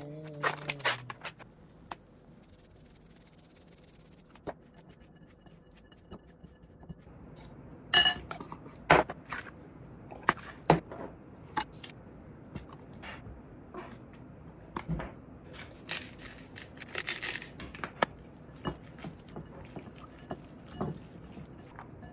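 Kitchen handling sounds: scattered taps, clinks and scrapes of a fork, an enamel bowl, an oil tin and plastic containers while shredded carrots are dressed and mixed. The sharpest clink, with a brief ring, comes about eight seconds in.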